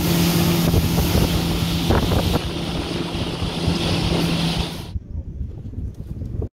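Outboard motor of a small aluminium boat running at speed, a steady hum under heavy wind and rushing water. It stops abruptly about five seconds in, leaving only faint scattered sounds.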